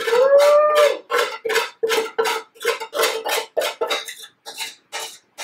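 Upturned metal pot tapped over and over, about three knocks a second, each knock ringing the pot, to shake the last of the sauce out into the seafood bowl.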